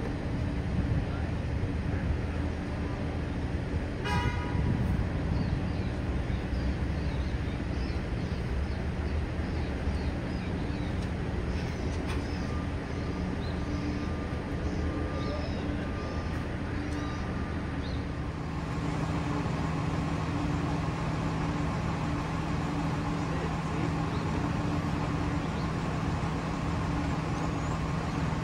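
Street traffic: a steady low rumble of vehicles with a steady engine hum, and a short car horn toot about four seconds in.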